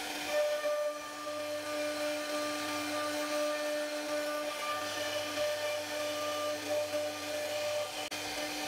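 CNC router spindle whining steadily as its bit carves a relief pattern into a wooden door panel, one held pitch over a hiss of cutting.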